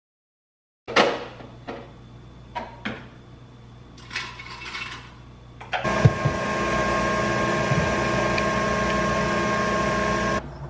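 A few knocks and clinks of glassware and ice on a stone countertop. Then, from about six seconds in, a small electric kitchen appliance runs with a steady hum for about four and a half seconds and stops abruptly.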